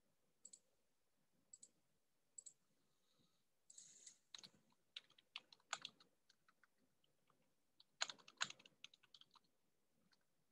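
Faint computer keyboard typing and clicks: a few separate clicks in the first couple of seconds, then an irregular run of keystrokes from about four seconds in until near the end.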